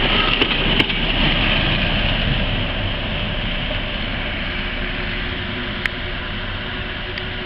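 Diesel locomotive running as it passes close by and draws away, its engine noise fading gradually, with two sharp clicks in the first second and another about six seconds in.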